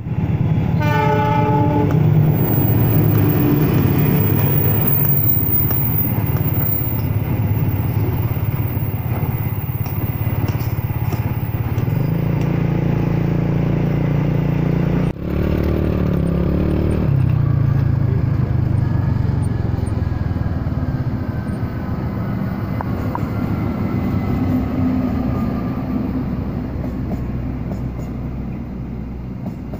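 Diesel-hauled passenger train passing close by. A short horn blast sounds about a second in, then the locomotive's engine and the coaches' wheels on the track make a steady, loud rumble, broken by a sudden cut about halfway.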